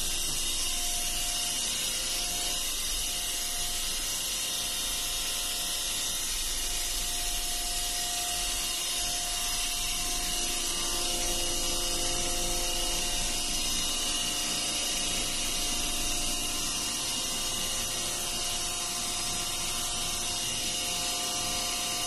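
Steady machinery noise of a ship's pump room: electric motor-driven pumps running, a constant hiss with a few steady hums underneath.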